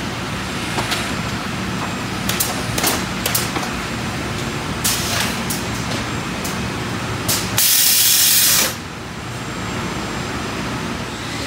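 A door slab turning on a rotating tilt table over steady shop machine noise, with several sharp clacks, then a loud burst of compressed-air hiss about eight seconds in that lasts about a second.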